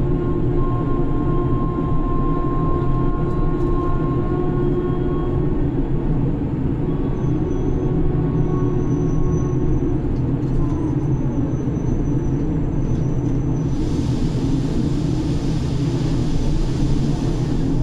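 Grab crane's machinery running steadily, heard from inside the operator's cabin: a low drone with steady tones and a faint high whine. A hiss joins in near the end.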